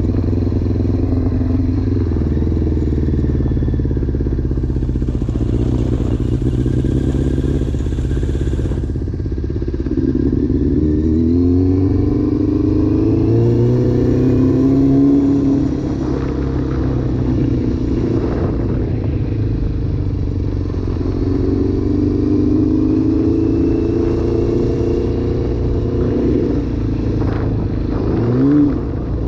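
Yamaha FZR600 sport bike's inline-four engine running while ridden, its note climbing in several long rises as it accelerates and dropping back between them, with a quick rev blip near the end.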